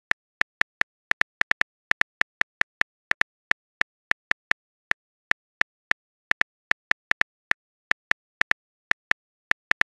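Phone keyboard click sounds, one short identical click per keystroke, coming about four a second at an uneven typing pace as a chat message is typed out.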